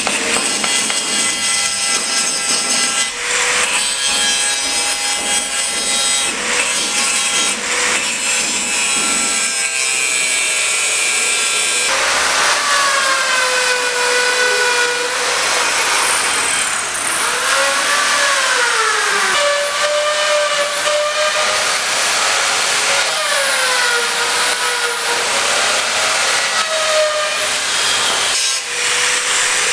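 Handheld power tool cutting, a high motor whine over harsh hissing. From about halfway through, its pitch dips and recovers again and again, as if bogging under load.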